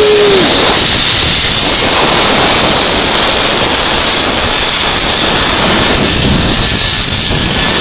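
Zipline trolley pulleys running fast along the steel cable: a loud, steady rushing hiss with a high whine, mixed with wind on the microphone.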